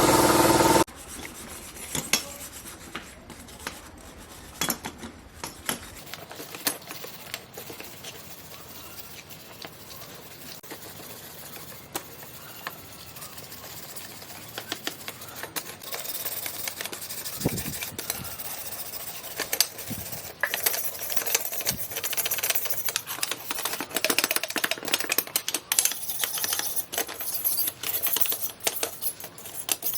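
A machine running stops about a second in, followed by irregular clicks, taps and scraping of small hard parts being handled and worked by hand, getting busier in the second half.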